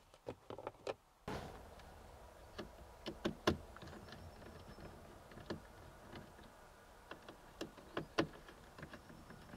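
Screwdriver working the screws out of plastic dashboard trim: scattered light clicks and taps of metal tool and plastic, the loudest about three and a half and eight seconds in.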